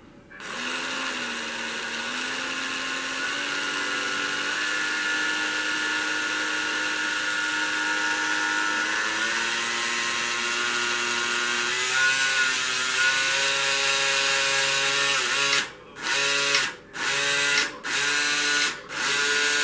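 Carrera Digital 1/32 '60 Plymouth Fury slot car's electric motor and gears running loud while the car is held in place on the track, a whine that climbs steadily in pitch as it speeds up. About three-quarters of the way through it cuts out and starts again several times in quick succession.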